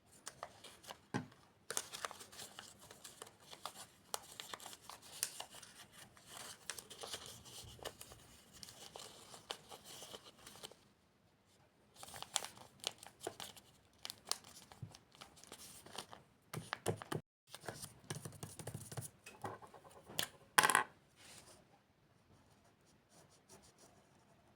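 Paper being handled for a paper squishy craft: rustling and tearing in three stretches, with the loudest tear near the end.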